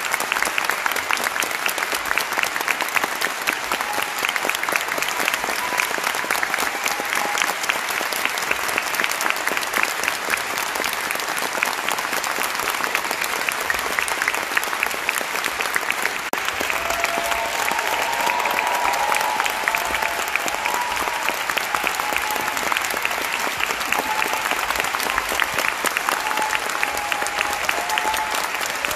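Audience applauding steadily, a dense continuous clapping of many hands, at a piano recital's curtain call.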